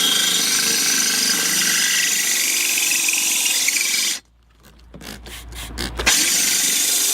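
Electric drill slowly turning a diamond core bit into porcelain tile, a steady grinding whine. It stops suddenly about four seconds in and starts again about two seconds later, spinning up before settling.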